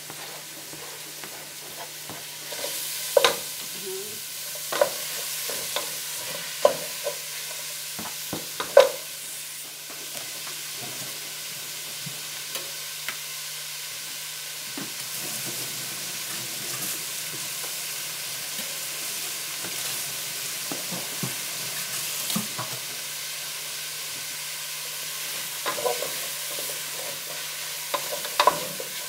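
Chopped red onion sizzling in a pot on the stove, a steady hiss. Sharp knocks from a wooden spoon come several times in the first nine seconds as the onion is scraped off a plastic cutting board into the pot, and again near the end as the onion is stirred against the pot.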